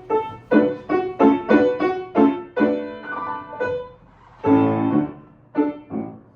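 Solo piano playing the introduction to an operetta song: short detached chords in a bouncy rhythm, with one longer, fuller chord held a little past halfway.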